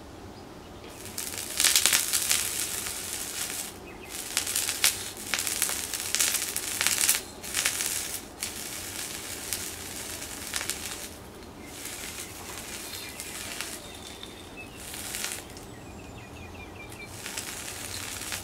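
Sausage sizzling and crackling on molten aluminium, in loud bursts a few seconds long as the tongs press and turn it on the hot metal.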